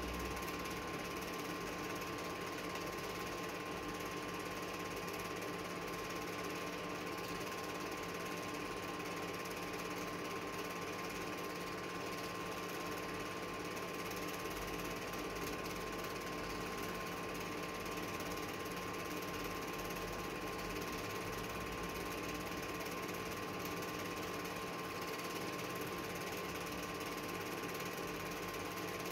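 Home-movie film projector running: a steady mechanical whirr and clatter with a constant hum that does not change.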